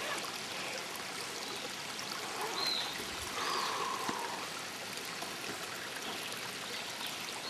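Shallow stream running over rocks, a steady rush of water.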